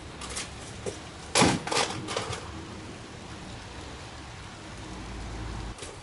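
A thin 1 mm polystyrene sticker sheet being handled and fitted against the side of a large cardboard box. A few short rustling, flapping knocks come in the first two seconds, the loudest about a second and a half in, then a low steady hiss.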